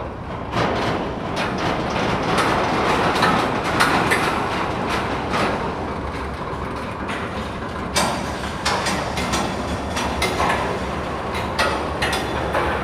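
Freight train of railway tank cars rolling slowly past on the rails. A steady rumble of wheels runs throughout, with frequent sharp clicks and clanks from the running gear.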